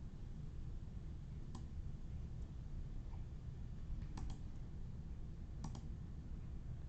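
A few faint, sharp clicks, two of them in quick pairs, over a low steady hum.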